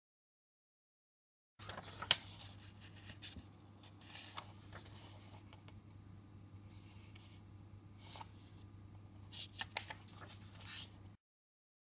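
Paper pages of a Dover paperback book being turned by hand: short rustles and flicks of paper, a sharp one about two seconds in and a quick cluster near the end, over a low steady hum. The sound comes in after a second and a half of dead silence and cuts off just before the end.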